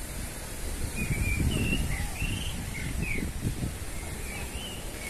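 Birds chirping: a string of short, quick high chirps over a steady low background rumble.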